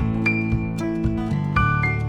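Background music: plucked acoustic guitar playing a steady tune.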